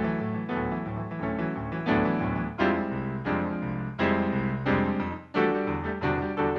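Background piano music, with chords struck at a steady, lively pace.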